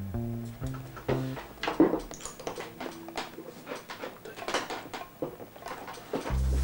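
Background music playing at low level, with a stepping bass line, and a few sharp knocks and clinks over it.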